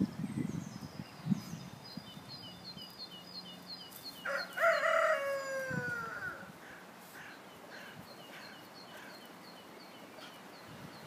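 A rooster crowing once, about four seconds in, the call sliding down in pitch as it ends.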